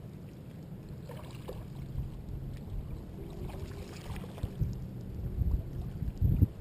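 Steady low rumble of wind buffeting the camera's microphone, with no clear distinct events.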